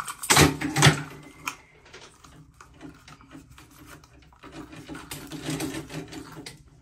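Handling noise of a chrome handheld shower head and its hose: two sharp knocks about half a second in, then scattered clicks and a stretch of rubbing and scraping as the hose's nut is screwed onto the handset by hand.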